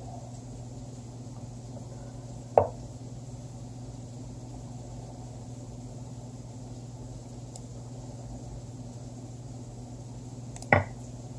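Two short wooden clacks about eight seconds apart: the online chess game's move sound, one for each move played. Under them runs a steady low electrical hum.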